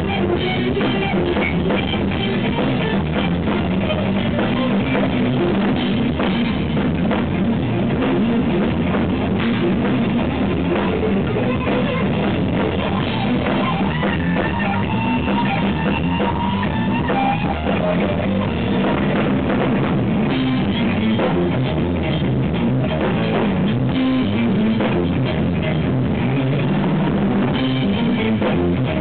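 Live instrumental rock-fusion band playing: electric guitar lead over bass guitar and drum kit. The recording is overdriven and distorted, with no top end.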